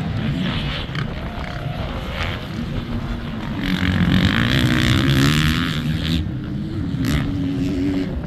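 Motocross bike engines running on the track, revving up and down through the gears, louder from about three and a half to six seconds in as a bike comes closer.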